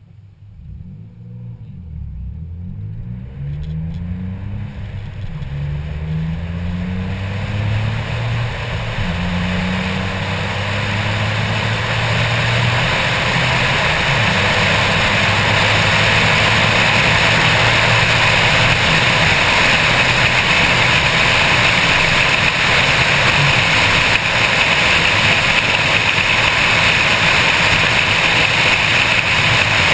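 Car accelerating hard from a standing start, its engine revs climbing and dropping back at each gear change several times, then a steady rush of wind on the hood-mounted microphone that builds until it drowns out the engine at high speed.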